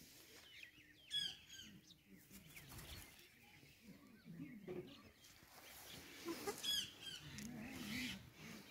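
Black Cochin chickens clucking softly, with bursts of high-pitched chirping that are loudest about a second in and again around six and a half seconds.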